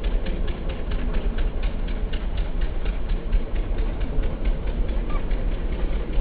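Low, steady rumble of a moving vehicle heard from inside it, with a rapid regular ticking, about five ticks a second, that grows fainter after the first few seconds.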